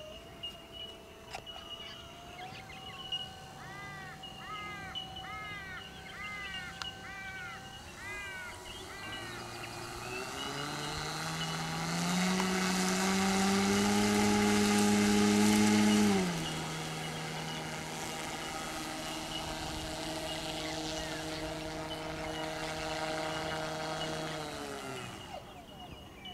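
An RC Kingfisher model seaplane's motor runs up while taxiing on the water. It climbs in pitch and is loudest for about four seconds midway, then drops back to a steady lower speed and stops near the end. A bird calls repeatedly in the first part.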